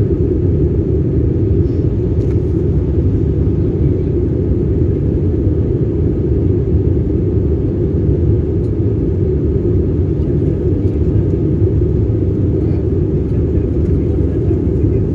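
Steady, even rumble of airliner cabin noise in flight: engine and airflow noise heard inside the cabin.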